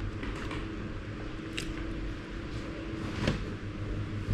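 Close-up eating sounds of fried chicken being chewed, with two short crisp clicks, one about a second and a half in and a louder one a little past three seconds, over a steady low hum.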